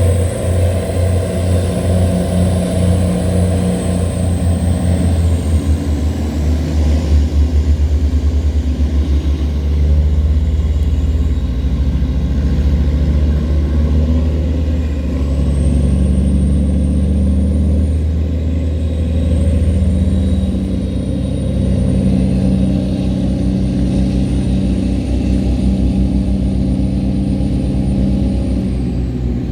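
Tugboat diesel engines running hard under load while towing cargo barges against the current: a deep, steady throb whose pitch shifts slightly a few times, with a thin high whine above it.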